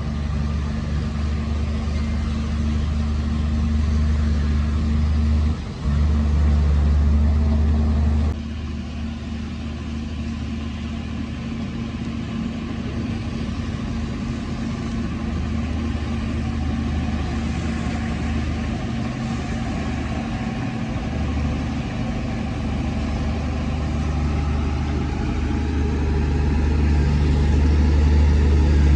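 Heavy diesel engine of earthmoving machinery running with a steady low drone. The level dips briefly about five and a half seconds in, drops suddenly about eight seconds in, and builds up again toward the end.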